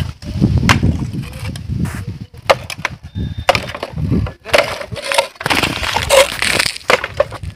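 Clay roof tiles clattering and knocking against each other and the wooden battens as they are pried up and shifted with a metal hook, in a string of sharp, irregular knocks.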